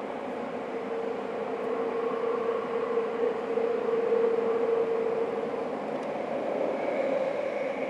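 Tokyo Metro 9000 series subway train (Mitsubishi IGBT-VVVF control) running between stations: a steady rumble of wheels on rail with a held humming tone, slightly louder in the middle.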